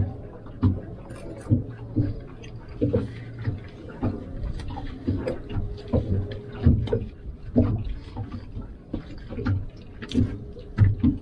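Forks tapping and scraping on plates during a meal, in irregular short knocks about once a second.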